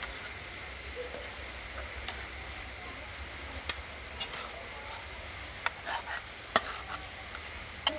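Two metal spatulas clanking and scraping against a steel wok while rice vermicelli noodles are tossed, in scattered separate strikes that come more often and louder in the second half.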